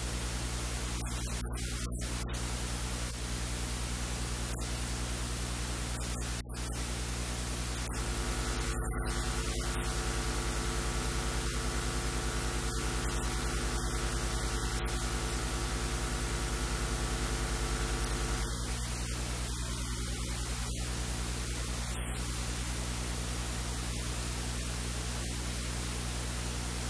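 Steady hiss with an electrical mains hum underneath. A second set of humming tones joins about eight seconds in and drops out about ten seconds later.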